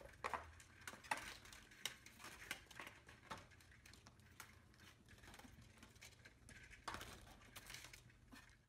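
Vertical window blind slats faintly clicking, clacking and rustling against each other as a lop-eared rabbit pushes through and sets them swinging. A cluster of louder clacks comes near the end.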